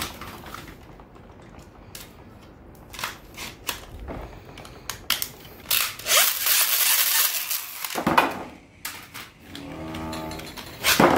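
Plastic clicking and clattering of Infinity Nado spinning tops and their launcher handles, with a couple of seconds of dense, loud rattling about six seconds in, as the tops are launched and clash in the plastic battle arena.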